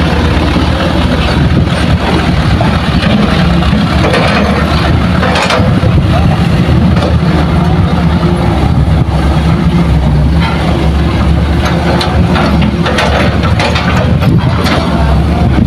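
Diesel engines of loaded light dump trucks running steadily as the trucks pull away over a dirt track.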